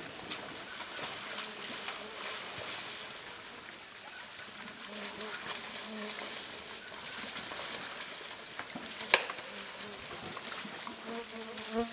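Rainforest ambience dominated by a steady, high-pitched insect drone, with one sharp click about nine seconds in.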